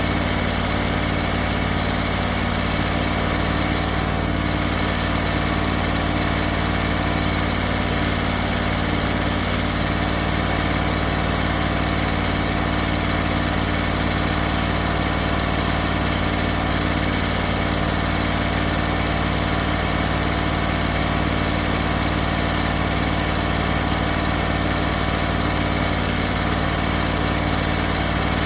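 Engine of a hydraulic sawmill running steadily at an even idle, with a constant hum and no change in speed.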